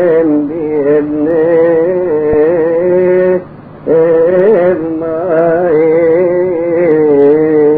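Coptic hymn music: a single sustained melodic line with wavering, ornamented turns, broken by a short pause about three and a half seconds in.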